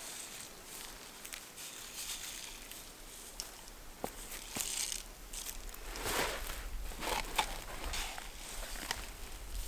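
Irregular footsteps crunching and rustling through dry leaves, plants and soil, with scattered sharp clicks and denser bouts of rustling about halfway through.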